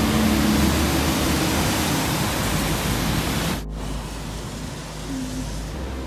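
Outdoor street ambience on a wet day: a loud, steady rushing hiss that drops off suddenly a little past halfway through, leaving quieter traffic noise.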